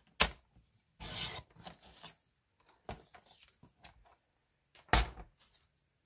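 Cardstock being trimmed on a paper trimmer: a sharp click, a short rasping slide of the blade through the paper about a second in, light rubbing and ticks of the paper being handled, and another sharp click near the end.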